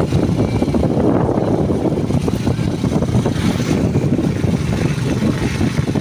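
Motorcycle engine of a Philippine tricycle (motorcycle with sidecar) running steadily as it rides along the road, with a continuous low rumble.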